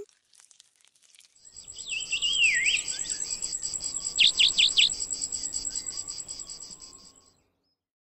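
Countryside ambience: an insect chirping in a fast, even high-pitched pulse, about seven a second, with a bird's whistled falling call and then a quick run of four falling notes. It fades in after a second and stops near the end.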